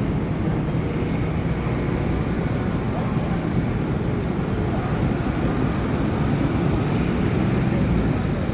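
Steady low rumble of city traffic and vehicle engines.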